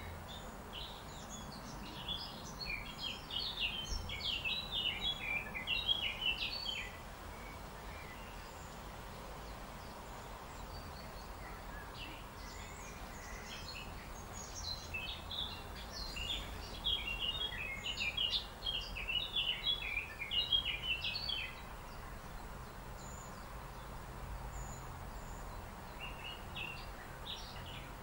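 Small songbird singing in long runs of rapid, high twittering chirps, two long bouts with a third starting near the end, over a steady low outdoor background noise.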